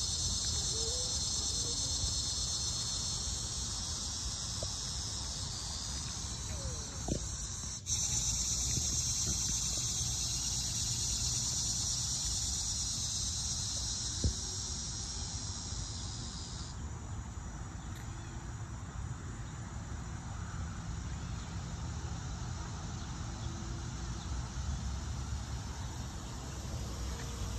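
A steady high-pitched chorus of insects chirring, which cuts off sharply about two-thirds of the way through. It plays over a steady low rumble, with a couple of brief knocks.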